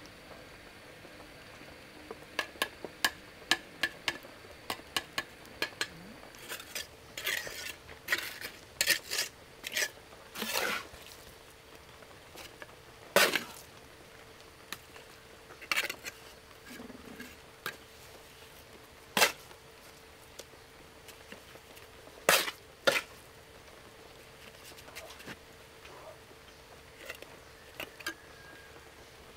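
A series of sharp clinks and knocks of hard objects, like utensils against pots: a quick run of light taps, then louder clusters, then single knocks a few seconds apart.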